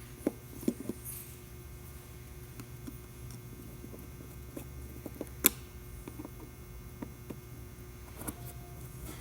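Scattered small clicks and taps of tools and parts being handled during Samsung Galaxy S7 disassembly, with one sharper click about five and a half seconds in, over a steady low electrical hum.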